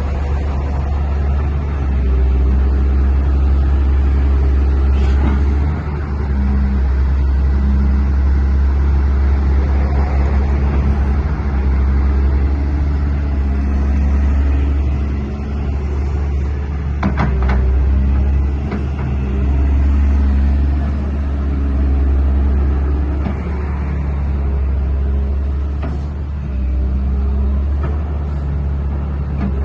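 The diesel engine of a Hyundai 200W-7A wheeled excavator runs steadily with a low drone, its loudness dipping and swelling a few times. There are a couple of sharp clicks or knocks a little past the middle.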